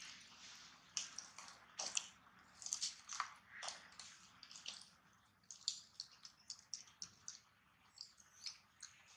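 Faint, high-pitched chirps and short squeaks from small animals, many in quick irregular succession, with a few squeals falling in pitch in the first few seconds.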